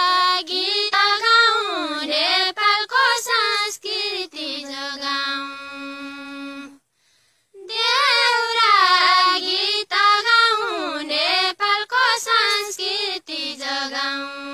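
A young woman singing a Far-Western Nepali deuda folk tune unaccompanied. Two long winding, ornamented phrases each settle onto a long held low note, with a short break about seven seconds in.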